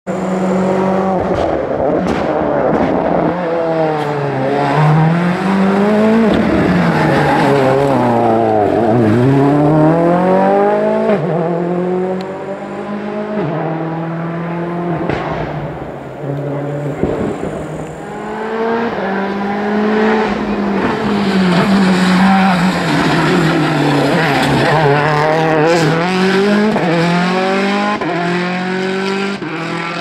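Rally cars at full throttle on a tarmac stage, one after another: each engine's note climbs steeply and drops back at every gear change, with a few sharp cracks between shifts.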